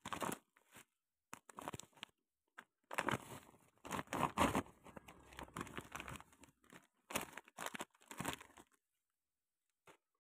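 Clear plastic packaging crinkling and rustling in bursts as it is handled and pulled off plastic toy animal figures, stopping about nine seconds in.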